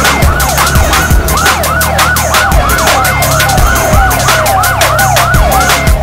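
Fast siren-like wail, sweeping up and down about twice a second, over loud background music with a steady beat and bass.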